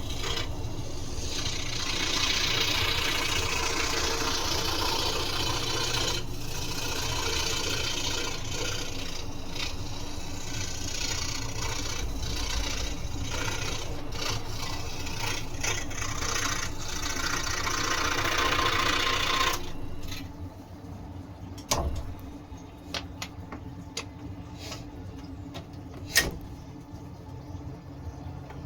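Scroll saw running steadily, its blade cutting through wood. It stops about two-thirds of the way through, followed by scattered light clicks and taps.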